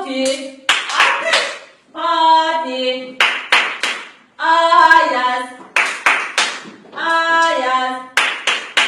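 Hand claps alternating with short sung phrases of a children's clapping song, a few sharp claps between each sung line.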